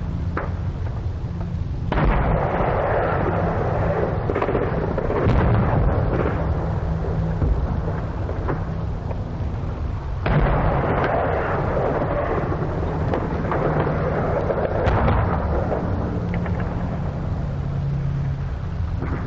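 Battlefield artillery and mortar fire on a 1944 field recording: a heavy boom about two seconds in and another about ten seconds in, each rumbling on for several seconds. A few sharp single cracks fall in between, over a steady low hum.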